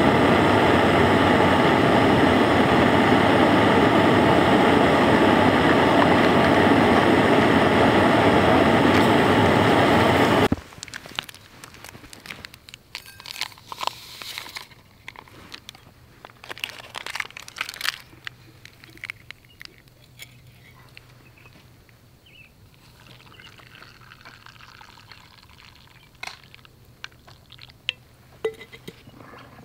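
Background music that cuts off abruptly about a third of the way in. After it, quiet handling of a camp stove set: small clicks and clinks of metal cups and hot water being poured into a cup.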